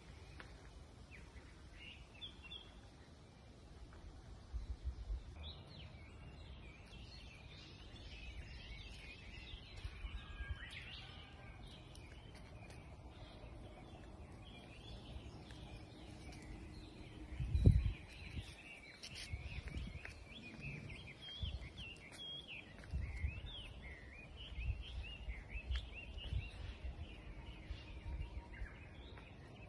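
Garden birds chirping and calling, many short calls overlapping, busier from about five seconds in. Under them come low bumps and rumbles, with one loud thump a little past halfway.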